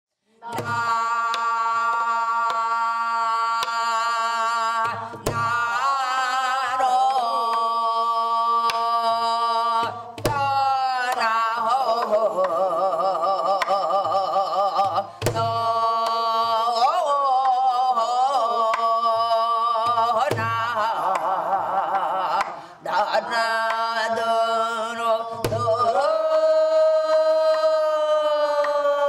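A woman singing Korean gueum, long wavering held notes without words, over a slow drum beat that strikes about every five seconds with lighter taps between and a steady low drone underneath.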